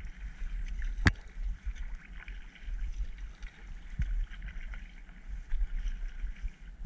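Kayak paddling: the paddle splashing in the water, over a low wind rumble on the microphone. There is a sharp knock about a second in and a softer one about three seconds later.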